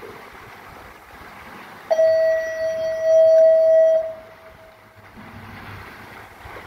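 A loud, steady single-pitched tone like a horn or alarm sounds for about two seconds, starting abruptly and stopping sharply, over a low hiss of wind and water.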